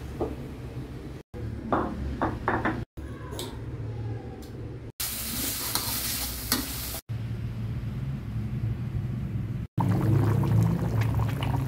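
Ground spice paste being stir-fried in a metal pan: a spatula knocks and scrapes against the pan, and the paste sizzles with a bright hiss, loudest a few seconds in. The clip is broken by short cuts, and a steady low hum runs beneath.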